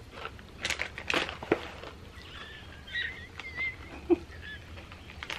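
Chewing of hard, crunchy Bissli snack pieces, a few crackly crunches in the first second and a half, then a bird chirping faintly several times in the background.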